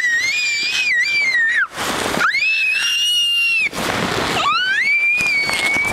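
A young child screaming, three long high-pitched shrieks of about a second and a half each with short breaths between.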